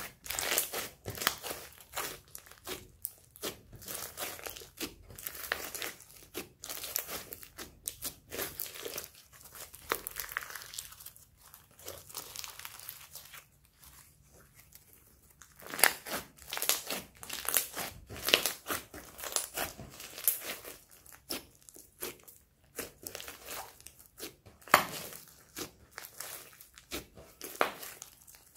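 Hands stretching, folding and squeezing a sticky slime mixed with foam beads: dense crackling, with sharp sticky pops and clicks. The crackling thins out about halfway through, then picks up again.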